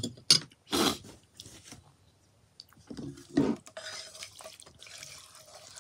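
Sharp clicks near the start and a low knock about three seconds in as the frying pan and wooden chopsticks are handled. Soft, wet chewing and slurping of kimchi noodles follows.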